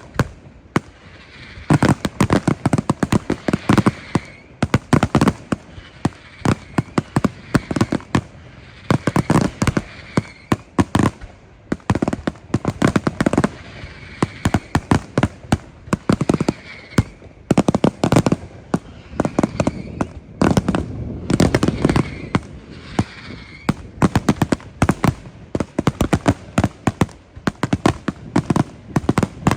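Fireworks display: rapid volleys of sharp bangs and crackling reports, coming in dense clusters every second or two.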